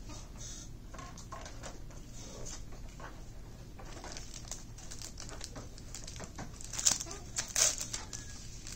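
Yu-Gi-Oh! trading cards being handled and sorted: light rustling and small clicks of card stock. Near the end comes a louder crinkling as a foil booster pack is torn open.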